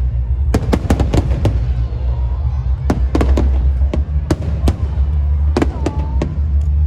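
Fireworks and firecrackers going off in scattered sharp bangs, about fifteen of them at irregular spacing, over a steady low rumble.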